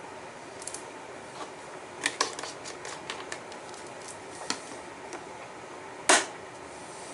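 A series of sharp clicks and knocks over a steady background hiss: a quick run of clicks about two seconds in, a knock at about four and a half seconds, and the loudest knock about six seconds in.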